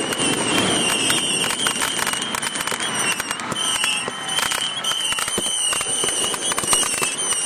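Aerial fireworks bursting overhead: a dense run of crackling and popping from the shells' stars, with a steady high whine underneath.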